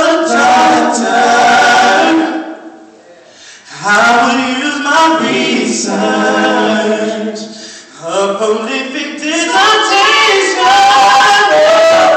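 Male vocal group singing a cappella, with no instruments, in sung phrases that break briefly about three seconds in and again about eight seconds in.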